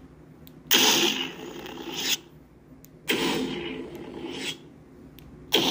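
Lightsaber sound board playing the BK Saber Sounds Survivor 2 soundfont. The blade ignites with a loud burst about a second in, hums, and retracts after about a second and a half. It ignites and retracts again in the middle, then ignites a third time near the end.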